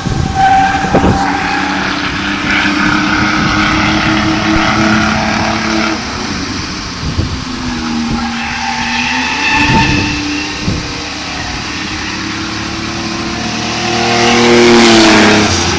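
Race car engine running at speed around an oval, its pitch rising and falling with the throttle. Near the end it grows loudest and drops in pitch as the car passes close by.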